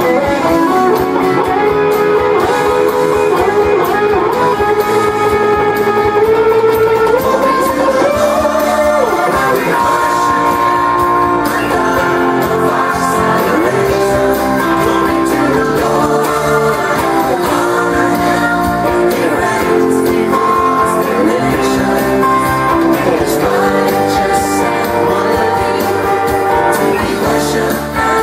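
Stratocaster-style electric guitar playing a melodic lead, with sustained and bent notes, over a full-band worship-song backing track.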